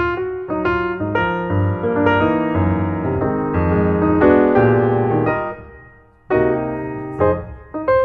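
Instrumental piano music, notes struck and left to ring, with a brief pause about three-quarters of the way through before the playing resumes.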